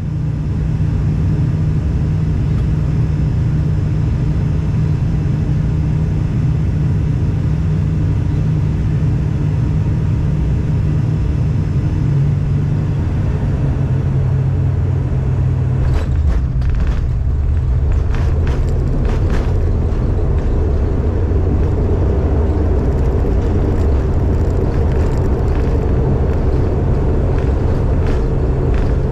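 ATR turboprop airliner's engines and propellers droning steadily on approach to landing. The propeller tone drops about halfway through, followed by a short series of knocks and a heavier low rumble.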